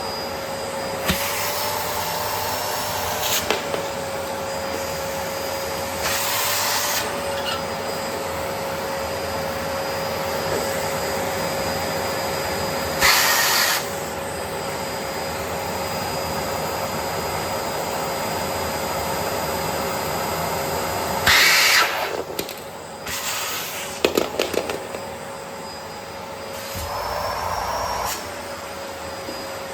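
A Bosch BGS21X320 bagless vacuum cleaner running steadily. Its motor whine lifts slightly in pitch a few times, with short louder rushes of air about a third and two thirds of the way in, and a few clicks and rattles near the end.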